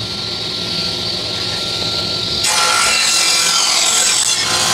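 DeWalt table saw running at speed with a steady motor whine. From about two and a half seconds in, its blade cuts through a piece of wood pushed along by a push block, and the sound turns brighter and louder.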